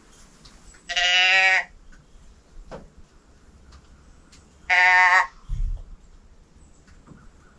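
Doe bleat can call tipped twice, giving two short bleats about four seconds apart, each under a second long, to call back spooked does. A low thump follows just after the second bleat.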